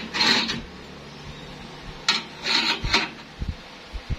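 Steel square tubing sliding and scraping against a steel workbench top and vise jaw: two short scrapes about two seconds apart, followed by a few soft low thumps near the end.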